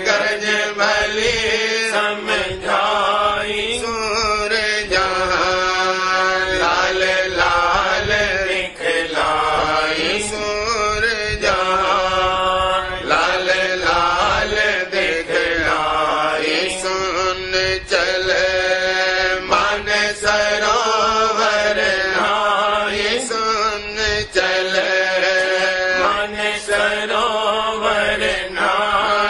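Devotional shabd hymn music: a chant-like melody over a steady low drone, continuous and unbroken.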